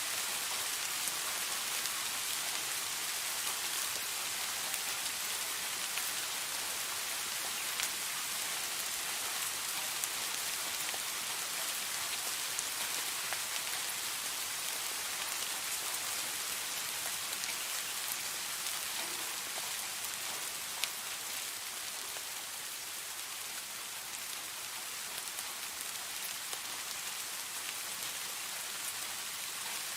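Steady rain falling, a constant hiss with scattered individual drops ticking on a hard surface.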